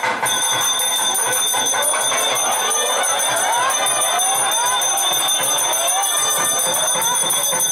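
Temple bells ringing on and on in a fast, unbroken clangour, with a crowd's voices and music underneath.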